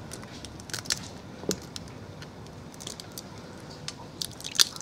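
Boiled crayfish shells cracking and crunching as they are peeled by hand: scattered sharp little clicks, with a quick cluster of louder cracks near the end.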